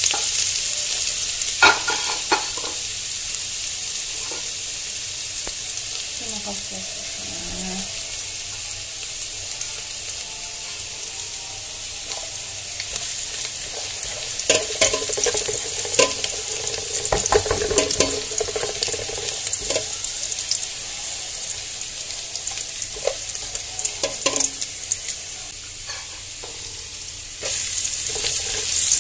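Minced garlic sizzling in hot cooking oil in a metal pot, with occasional clicks and scrapes of a slotted spoon stirring it. The sizzle grows louder near the end.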